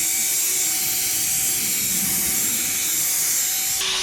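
Power drill with a buffing pad running at high speed, polishing a plastic headlight lens with compound: a steady whirring hum under the hiss of the pad rubbing on the lens. The hum drops abruptly to a lower pitch near the end.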